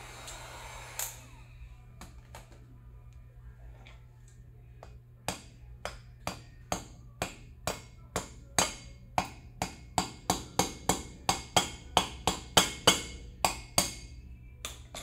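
A heat gun blowing, cut off about a second in; then, from about five seconds in, an adjustable wrench knocking on the electric unicycle's heated aluminum motor cover, about twenty sharp metal strikes coming faster and louder toward the end. They are blows meant to drive out a stuck steel bearing, and it does not budge.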